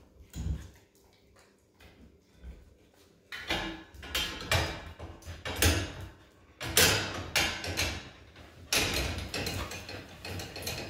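Wheaten terriers jumping up against a metal pet gate, making it rattle and clank in repeated noisy bursts that start about a third of the way in.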